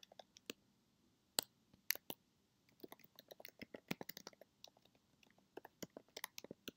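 Typing on a computer keyboard: faint, irregular runs of key clicks, densest about three to four seconds in and again near the end.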